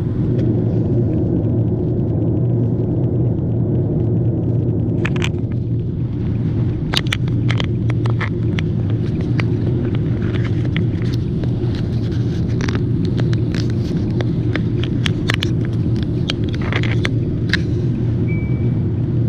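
Car driving, heard from inside: steady road and engine rumble with scattered light clicks and ticks. A short high beep sounds near the end.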